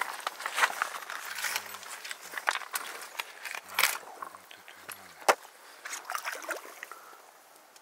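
Clicks and light rattles of fishing tackle being handled: lures picked from a plastic tackle box and line worked onto a spinning rod. The clicks are busiest about four to five seconds in, with faint low tones coming and going underneath.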